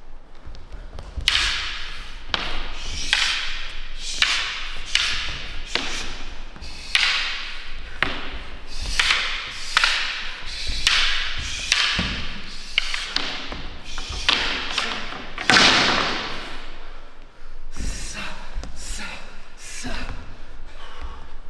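A fast, irregular series of thuds and slaps from martial arts strikes and body contact, about one and a half a second, with a brief pause a little after the middle.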